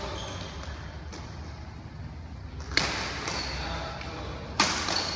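Badminton rally: a racket strikes the shuttlecock twice, about two seconds apart, with sharp hits, the second slightly louder, ringing in a large hall.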